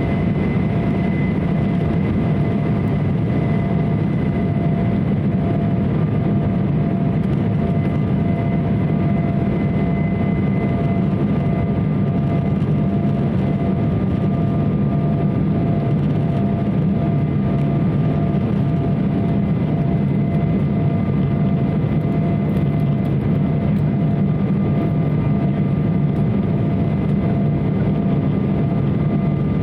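Steady cabin roar of an Embraer 170 jet airliner: its turbofan engines and the airflow give a deep, even rumble with faint steady whine tones above it, typical of the climb after takeoff.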